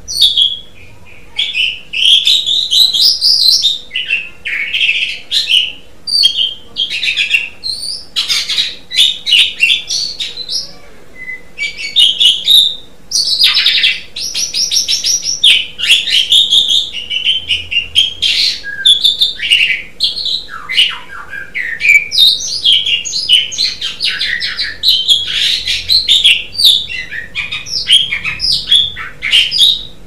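Jalak suren (pied myna) singing energetically, a near-continuous run of loud, varied chattering and whistled phrases with only brief pauses between them.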